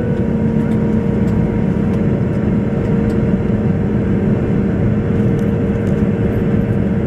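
Airliner cabin noise on the approach to landing: a steady rush of engine and airflow noise with a constant tone running through it.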